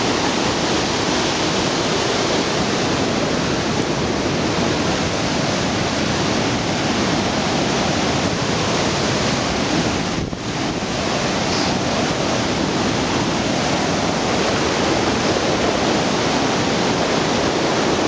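Waterfall pouring, a loud steady rush of falling water with a brief dip about ten seconds in.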